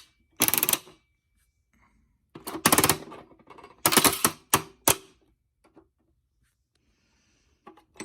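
Coin-operated bouncy-ball vending machine being worked by hand, its crank mechanism clattering and clicking in three short bursts over the first five seconds.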